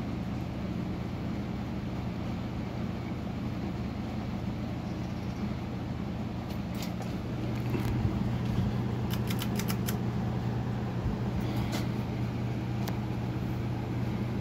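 Encon Monarch 52-inch ceiling fan running with a steady motor hum and air noise, a little louder from about halfway. A run of light clicks comes in the middle.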